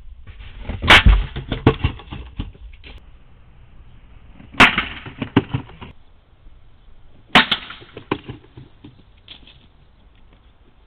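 Three loud bangs from a decoy package rigged to fire blanks when it is picked up: about a second in, near the middle, and about two-thirds of the way through. Each bang is followed by a quick run of smaller sharp cracks.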